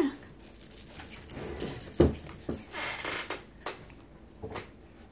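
A plush baby toy with a rattle inside, shaken and handled: a soft thump about two seconds in, rattling around three seconds in, and a few light clicks after that.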